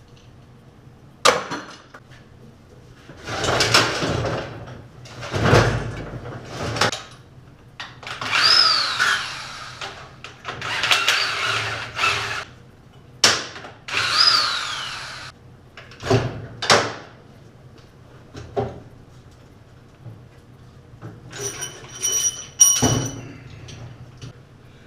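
A power tool runs in several short bursts of one to two seconds, backing bolts out of a small-block Chevy engine during teardown. Twice it whines down in pitch as it stops. Sharp metallic clinks follow, with a ringing clank of metal parts near the end.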